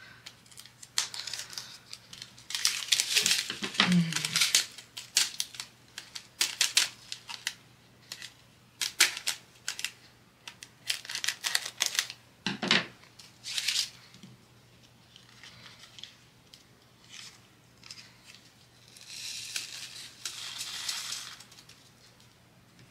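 Small plastic bags of diamond-painting drills being handled and opened: irregular crinkling and rustling with scattered clicks, and a longer rustle near the end.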